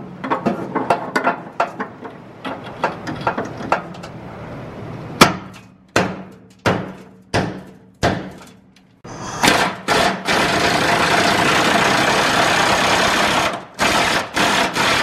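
Metal clicking at a socket and extension, then about five separate hammer-like knocks roughly two-thirds of a second apart. Then an impact wrench runs steadily for about four seconds and in short bursts near the end, working a stubborn truck-bed bolt loose.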